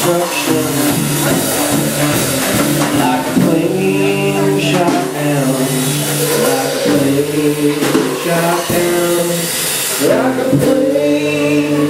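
Live folk-rock song with an acoustic guitar strummed over a drum kit, in a mostly instrumental stretch between sung lines, with a few sharp drum hits late on.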